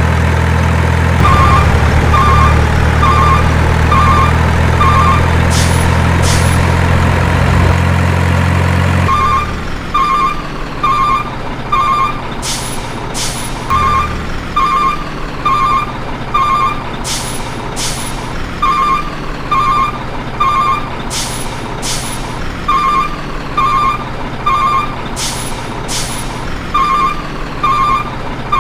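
Truck sounds: a heavy engine hums steadily for the first nine seconds or so, then stops. A reversing alarm beeps in quick groups of three to five, over and over, with short paired hisses like air-brake releases.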